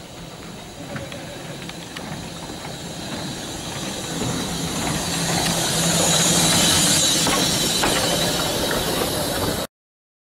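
Andrew Barclay saddle tank steam locomotive drawing close and passing, steam hissing. It grows louder to a peak about six to seven seconds in, then cuts off abruptly near the end.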